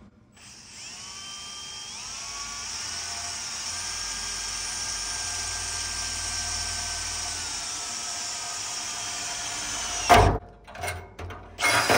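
Cordless drill boring a 1.5-inch hole through the steel wall of a 55-gallon drum. The motor whine climbs in pitch over the first couple of seconds, then runs steady while cutting and stops about ten seconds in. A couple of sharp knocks and rattling follow near the end.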